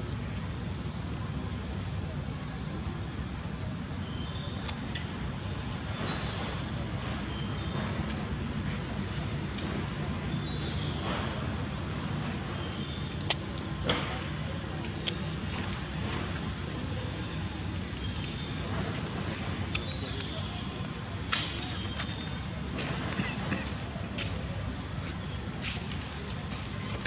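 Steady high-pitched chorus of insects, a continuous drone that holds unchanged throughout. A few short sharp clicks stand out around the middle, with a louder one later on.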